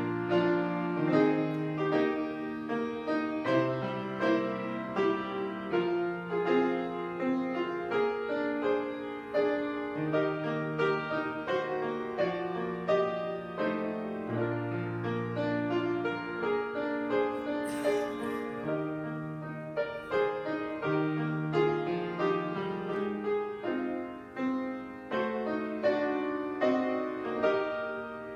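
Solo piano playing a slow prelude for a worship service, a bass line moving under chords and a melody.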